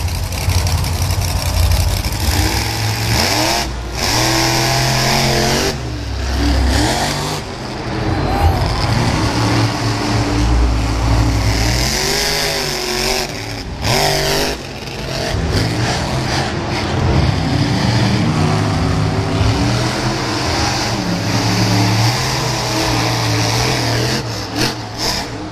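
Monster truck engines revving hard on the dirt arena floor, their pitch climbing and falling again and again as the trucks accelerate and jump, broken by several abrupt cuts.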